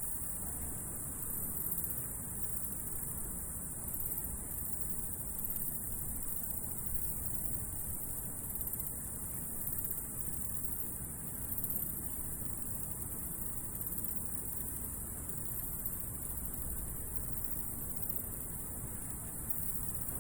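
A bat colony chattering: a dense, continuous high-pitched squeaking over a low, steady background noise.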